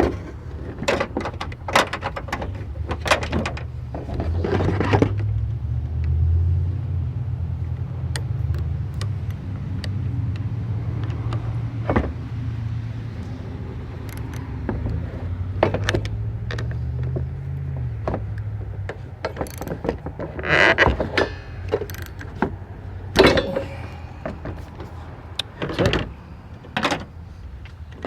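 Hand tools working on a car's wiper linkage: a series of sharp metal clicks and clanks as a bolt is tightened down, with a steady low hum underneath for a stretch in the middle.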